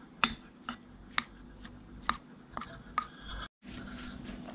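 Metal spoon stirring a moist mixture of pounded jackfruit seeds and oil in a ceramic plate, clinking against the plate about twice a second. The clinks stop about three and a half seconds in.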